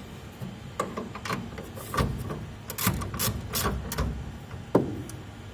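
Irregular metallic clicks and clinks of a wrench tightening the mounting nuts on an air conditioner's indoor fan motor, with a sharper knock near the end.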